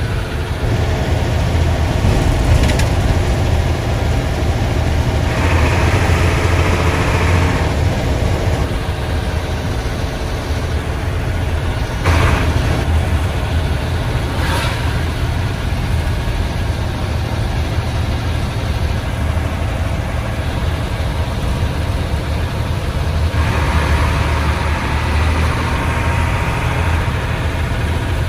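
Classic Hino bus diesel engine running steadily under way, a deep low rumble from its loud, droning exhaust. Three short sharp knocks come through it, and twice a louder hiss rises for a couple of seconds.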